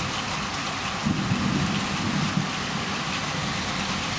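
Heavy thunderstorm rain pouring steadily, an even hiss, with a low rumble underneath that grows a little from about a second in.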